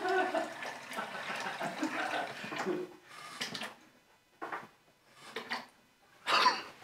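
Water running from a kitchen tap into the sink, stopping about three seconds in. A few short faint sounds follow, and a louder short one near the end.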